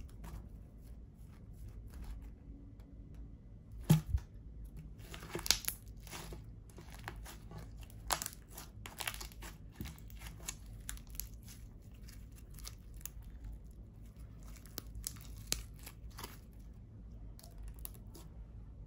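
Clear glitter slime worked by hand, stretched, folded and pressed: irregular sticky clicks and crackling pops, the loudest a few sharp pops about four and five and a half seconds in.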